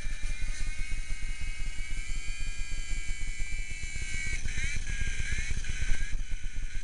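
Toy remote-control helicopter in flight: its small electric motor whines high over the fast chop of the rotor blades, the whine shifting and wavering in pitch in the second half. The owner thinks its battery is running down.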